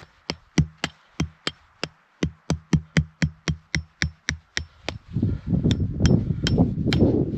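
Tent stake being hammered into hard, crusty frozen snow: a steady run of sharp strikes, about three a second, each with a light metallic ring. About five seconds in, wind noise on the microphone rises under a few more strikes.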